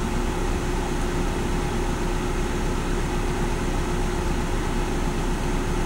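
A car engine running steadily at rest, a constant low hum with one steady tone, heard from inside the cabin.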